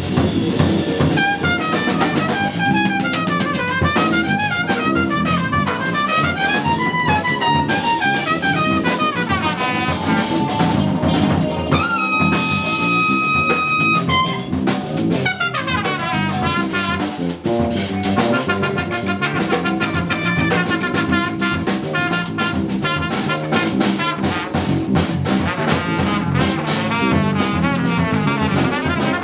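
Jazz trumpet solo over electric bass and drum kit, played live: quick melodic runs that climb and fall, with one long held high note about twelve seconds in.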